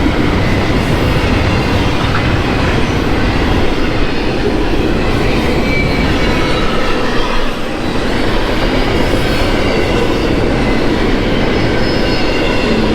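Union Pacific container freight train passing close by, its cars running steadily over the rails, with faint brief high squeals from the wheels.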